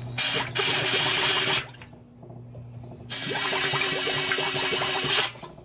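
Compressed-air blow gun blasting under water, two bursts of hissing and bubbling, about a second and a half and then two seconds long. Air is being forced up the outboard's lower unit to clear its cooling-water passages, since no water came out of the exhaust holes; the owner suspects a worn or hardened water-pump impeller.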